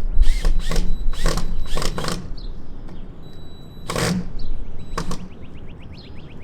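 Cordless drill driving screws through a plastic trellis into a fence, in short bursts: several in quick succession, then two more spaced about a second apart. A bird gives a fast trill near the end.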